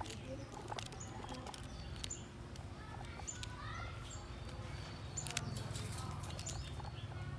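Guinea pigs chewing fresh cabbage and cucumber, giving scattered sharp crunches and clicks, the loudest about five seconds in. Short high bird chirps repeat about once a second behind it.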